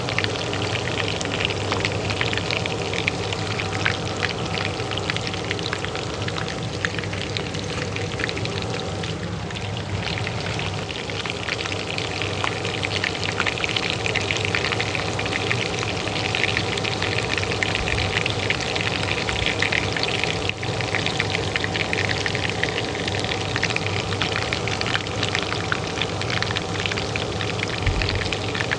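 Hot oil frying in a pan, a dense, continuous crackle and spitting, over the steady hum of a kitchen range hood fan.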